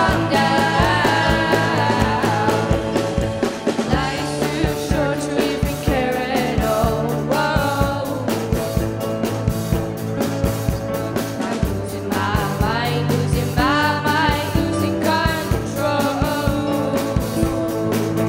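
A live rock band performing a song, with a singer's voice over the band's steady beat.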